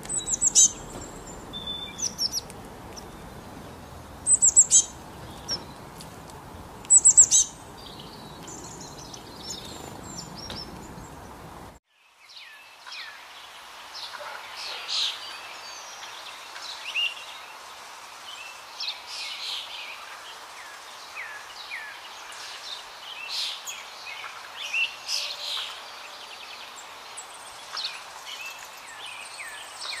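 Wild songbirds calling: clusters of sharp, high chirps over a steady background hiss. About twelve seconds in, this cuts abruptly to a busier mix of varied chirps and short trills over a quieter background.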